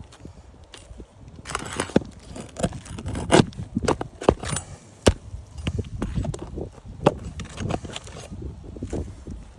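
Asphalt roof shingles being pried and scraped loose: scraping with many sharp cracks and snaps as the sealed shingles break free. The old shingles are being lifted in a repairability test to see whether they come out without damage.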